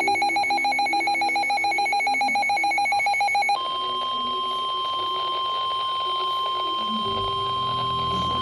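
Emergency alert audio from a weather radio. A rapidly pulsing, buzzy electronic beep runs for about three and a half seconds, then gives way to the steady, single-pitched 1050 Hz NOAA Weather Radio warning alarm tone. That tone signals a warning message is about to follow.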